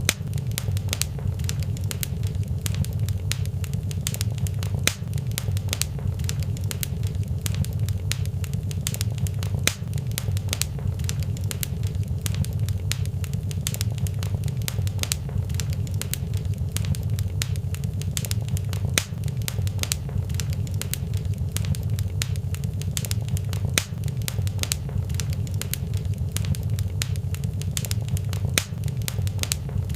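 Fireplace fire crackling, with frequent sharp pops and snaps over a steady low rumble.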